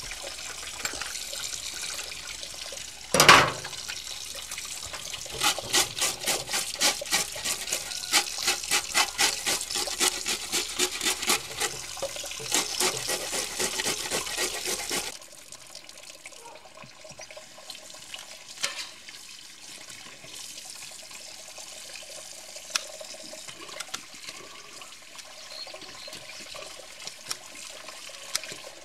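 Tap water running into a steel sink while a box grater scrapes scales off zander (pike-perch) in quick, regular strokes, with one loud knock about three seconds in. Halfway through the sound drops suddenly to a quieter background with a few sharp clicks of kitchen scissors snipping fins.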